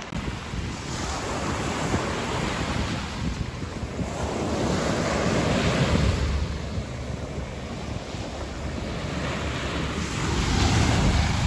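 Ocean surf washing onto a sandy beach, swelling and fading every few seconds as waves come in, with wind buffeting the microphone.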